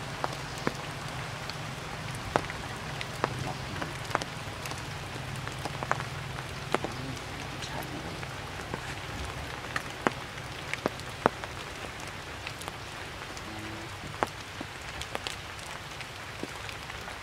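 Rain falling on tree leaves: a steady patter with many irregular, sharper single drops striking close by.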